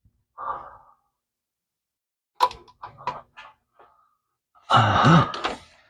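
A few quick light clicks and taps of parts and tools being handled, then a loud, breathy, straining grunt near the end.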